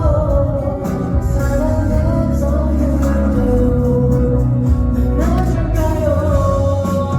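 Slow pop ballad played live: a voice or lead line holds long, slightly wavering notes over the band's guitar and bass, sliding up to a new held note about five seconds in.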